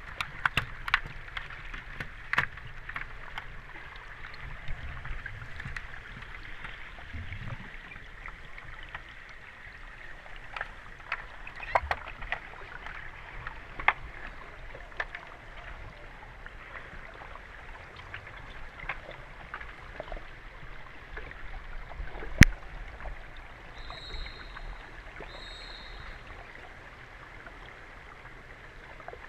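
Underwater sound of an underwater hockey game picked up by a submerged camera: a steady hiss with scattered sharp clicks and knocks as sticks and puck strike the pool floor. The loudest is a single sharp knock past the middle, followed by two short high beeps about a second and a half apart.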